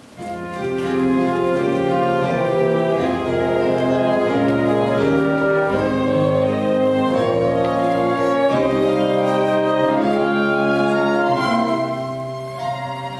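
Theatre orchestra playing slow transition music in held notes. It starts about half a second in and grows quieter near the end.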